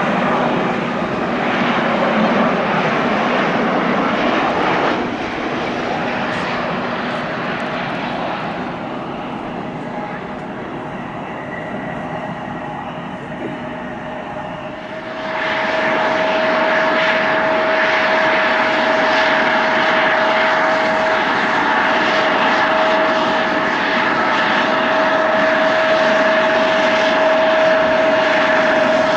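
Jet airliner engines: a loud roar for the first few seconds that then eases off. About fifteen seconds in, a jet's steady whine with a held tone comes in loudly and stays.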